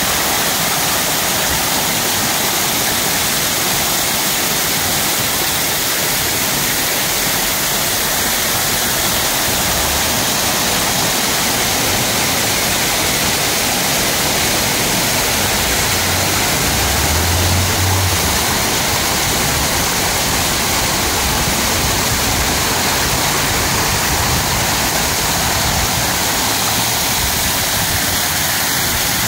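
Water-wall fountain: many thin streams falling down a stone wall into a shallow pool, making a steady, even splashing rush. There is a brief low rumble a little past the middle.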